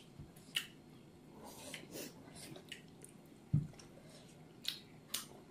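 Mouth sounds of people eating soft steamed pork dumplings (momos): scattered wet chewing and lip-smacking clicks, with one brief low thump about three and a half seconds in.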